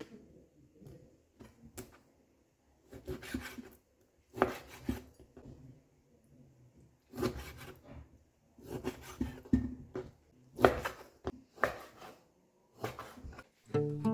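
Kitchen food-prep handling sounds: irregular scraping and rubbing with sharp knocks, as of utensils and ingredients on a wooden board.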